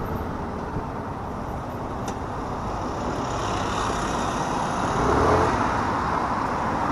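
Steady rush of road vehicle noise, mostly tyre and wind noise, growing a little louder, with a brief low engine hum about five seconds in.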